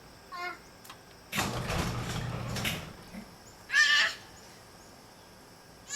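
A toddler's short, high-pitched wavering squeals, three of them, the loudest about four seconds in, with a rushing burst of noise and low hum a little over a second in.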